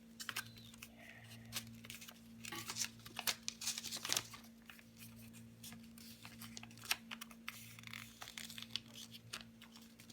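Sheet of paper being folded and creased by hand, with irregular crinkling rustles and sharp crackles, busiest in the middle, over a steady low electrical hum.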